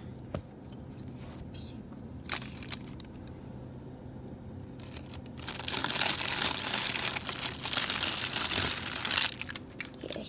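Plastic bags of frozen food crinkling and rustling as a hand rummages in a freezer drawer, loudest for several seconds past the middle. A few sharp knocks come earlier, over a faint steady hum.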